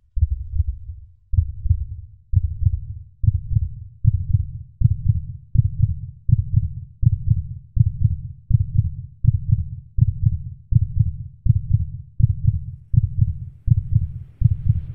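Heartbeat sound effect: low, muffled beats, slow at first and speeding up steadily to almost two beats a second.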